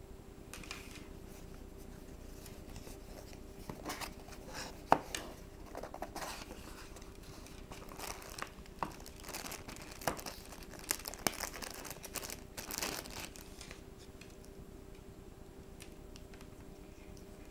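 Unpacking by hand: a cardboard box being opened and a plastic bag crinkling and tearing, with irregular clicks and rustles and one sharp click about five seconds in as the loudest. The handling goes quieter for the last few seconds as the earbuds are held up, over a faint steady hum.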